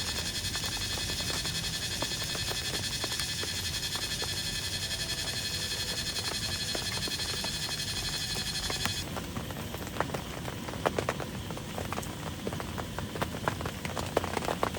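Rain: a steady, dense hiss that changes abruptly about nine seconds in to sparser, irregular sharp drops ticking and pattering on a surface.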